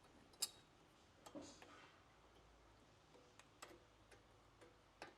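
Mostly quiet, with a few sharp, light metal clicks and a soft knock, the loudest about half a second in: brake pad hardware being handled and seated on the caliper.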